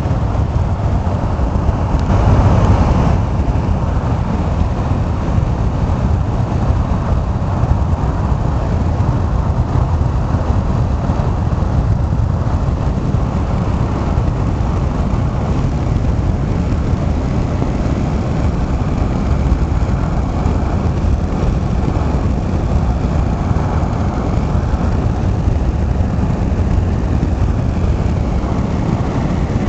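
Steady road and engine noise heard inside a moving vehicle at motorway speed, with a brief louder rush about two seconds in.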